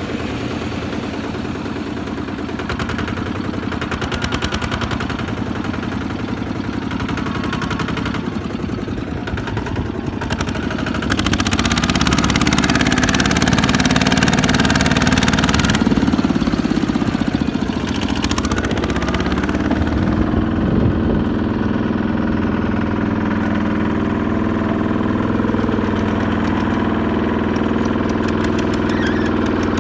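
Single-cylinder diesel engine of a Kubota two-wheel walking tractor running steadily while it hauls a heavily loaded trailer. It gets louder about eleven seconds in.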